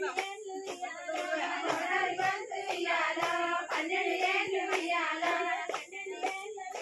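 Women singing a Bathukamma folk song in a group, with steady rhythmic hand clapping about three claps a second.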